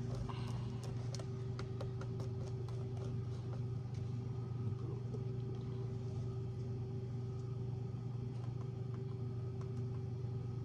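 A steady low mechanical hum with a constant pitch, and a few light clicks and taps, mostly in the first couple of seconds.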